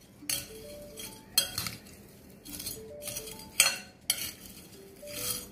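Steel spoon stirring crisp fried noodles and chopped vegetables in a glass bowl: about five short scraping, clinking strokes against the glass.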